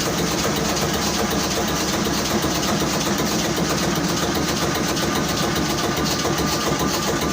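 Callesen 422 marine diesel engine running steadily.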